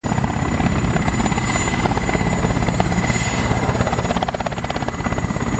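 Helicopter sound effect: rotor blades chopping in a fast, steady beat over a thin whine, standing in for the flying toy police helicopter.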